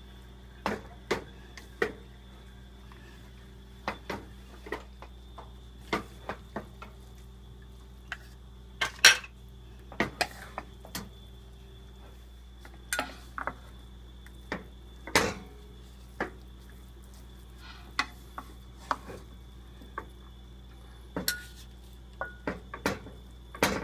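Wooden spatula and chopsticks knocking and scraping against a coated wok as steamed sticky rice is stirred and folded into fried pork and mushrooms. The knocks come irregularly, the loudest about nine and fifteen seconds in. A steady low hum runs underneath.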